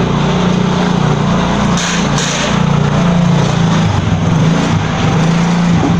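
Motor vehicle engine running steadily: a constant low hum over a loud rushing noise.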